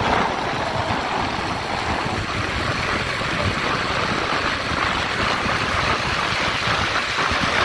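Steady wind rush and running motorcycle noise heard while riding at highway speed.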